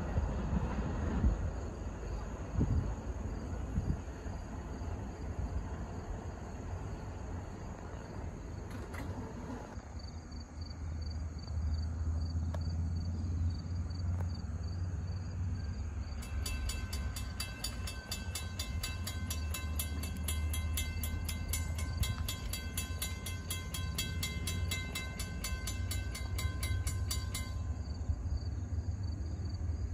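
Approaching diesel train at a grade crossing: a low locomotive rumble builds from about a third of the way in. Over the middle of the second half the locomotive's horn sounds for the crossing, held for about eleven seconds.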